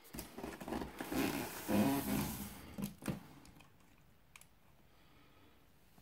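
Handling noise as a cardboard box is turned around on a wooden floor: scraping and rustling for about three seconds, loudest near the middle, then a few faint clicks.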